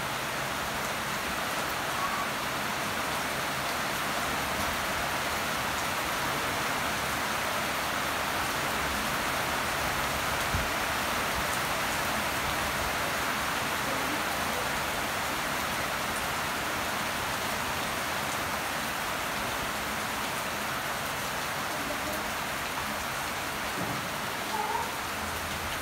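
Steady rain falling on leafy garden plants, an even hiss that does not change in strength. A couple of faint short chirps sound through it, once about two seconds in and once near the end.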